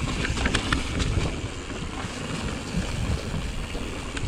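Wind buffeting the microphone over the steady low rumble of a Pivot Mach 5.5 mountain bike's tyres rolling on a dirt singletrack, with a few sharp clicks from the bike in the first second.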